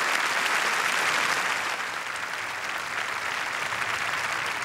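A large crowd applauding, a dense steady clapping that eases a little after about two seconds.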